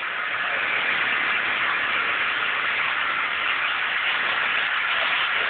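Electric reciprocating saw running steadily at full speed with a harsh, hissing buzz, its blade cutting through an ice cream cake.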